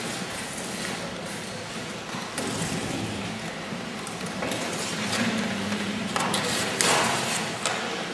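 A blade cutting into the white panel wall of a large cube, heard as a few separate scraping strokes, the longest and loudest a little before the end.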